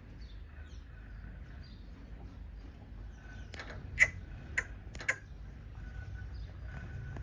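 Small birds chirping faintly in short falling notes over a low steady rumble, with four sharp clicks or knocks about half a second apart in the middle, the second the loudest.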